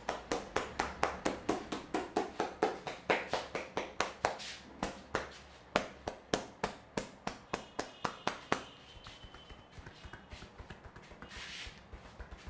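A barber's hands tapping in a rhythmic percussive massage, about four or five sharp strikes a second. After about eight seconds the strokes turn to quieter, lighter taps.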